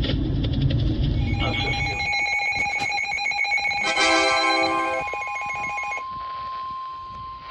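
Weather radio alert tones: a low noisy rumble for the first two seconds, then a cluster of overlapping electronic beeping tones. About six seconds in, a steady single-pitched alarm tone begins: the 1050 Hz warning alarm that NOAA Weather Radio sounds before a new warning message.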